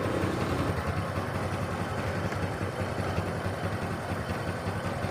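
Honda Supra X 125's single-cylinder four-stroke engine idling steadily.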